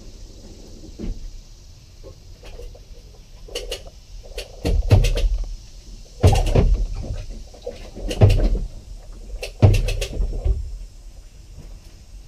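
Heavy hollow clunks and knocks through the personal watercraft's hull as its front is jacked up: four loud ones spaced about a second and a half apart, with smaller knocks between them.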